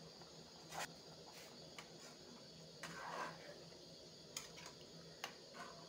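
Spatula stirring thick cucumber curry in a metal kadai: a few faint scrapes and taps against the pan, one a little longer about three seconds in, over a faint steady low hum.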